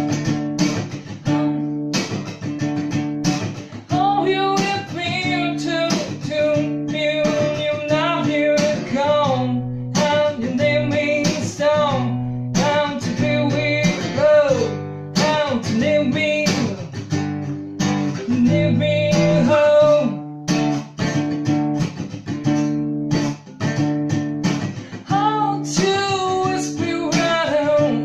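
Acoustic guitar strummed steadily with a man singing a folk melody over it.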